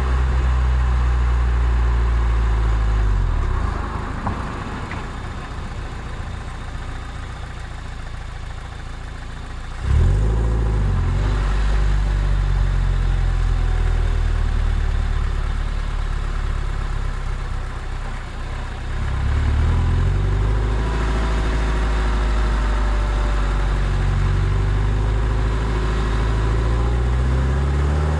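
Toyota MR2 Spyder's 1.8-litre four-cylinder engine running under load on a steady climb. About three or four seconds in it goes off the throttle and quietens. About ten seconds in the throttle opens again sharply and the revs rise. It eases off briefly again around nineteen seconds before pulling on.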